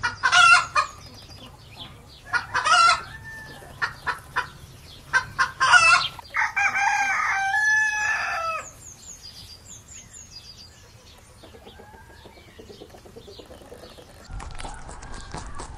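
Chickens calling: three loud, short squawking calls in the first six seconds, then a rooster crows once, a cock-a-doodle-doo of about two and a half seconds. After that there is softer clucking, with small birds chirping in the background.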